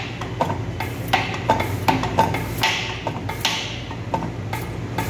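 A Mitsubishi 4D56 diesel injector nozzle on a hand-lever pop tester makes clicks and knocks as the lever is pumped slowly to build pressure. Short hissing bursts come near the middle and again at the end as the nozzle opens and sprays. It opens just above 15,000 kPa.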